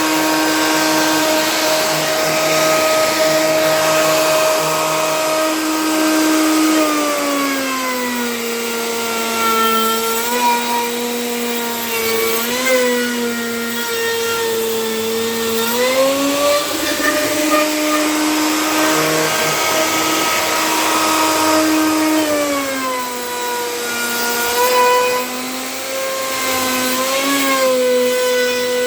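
A handheld electric woodworking power tool running steadily at high speed. Its whine drops in pitch twice as it is pushed into the wood, then rises back as the load eases.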